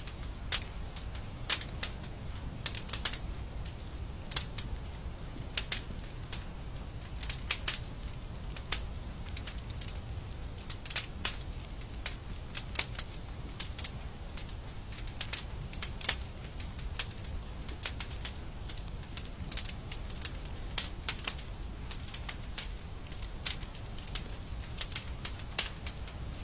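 Wood fire in a fireplace crackling, with irregular sharp pops and snaps several times a second over a steady low rumble of the flames.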